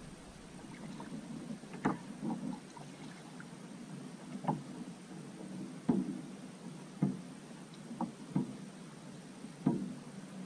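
Small water splashes and light knocks beside a plastic fishing kayak as a smallmouth bass is handled and dipped in the creek. About nine short, sharp sounds come at irregular intervals over a quiet steady background.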